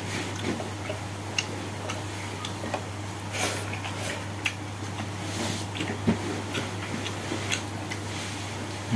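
Eating by hand: irregular small clicks and smacks of chewing and of fingers working rice on a plate, over a steady low hum.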